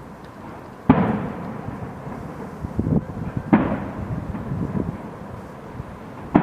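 Fireworks shells bursting: a loud boom about a second in and another about three and a half seconds in, each trailing off in a long echoing rumble, with smaller pops between them and a third boom at the very end.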